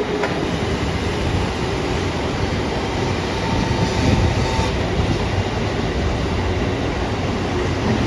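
A train running past close by: a steady, loud rumble of wheels on the rails.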